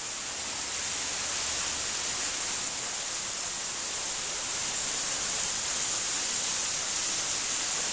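Steady hiss of running spring water seeping out of the rock.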